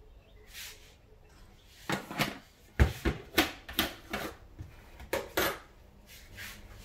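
Kitchen items being handled: about ten short clattering knocks of hard objects, close together between two and five and a half seconds in, with one softer knock earlier.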